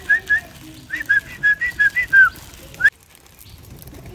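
Person whistling a quick run of short, sharp notes to call pigeons to feed, in two runs with the notes shifting in pitch in the second. The whistling cuts off abruptly about three seconds in.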